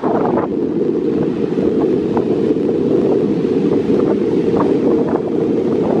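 Wind buffeting the microphone in a steady low rumble over ocean surf washing onto the beach.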